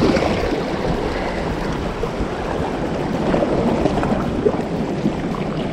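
Steady wind rushing over the microphone, with water washing against the jetty rocks underneath.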